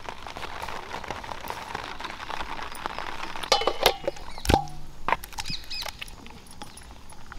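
Raw chicken drumsticks being handled and moved between steel dishes: soft scattered clicks and rustles, then a sharp clank of a steel plate against a steel bowl about four and a half seconds in that rings on briefly.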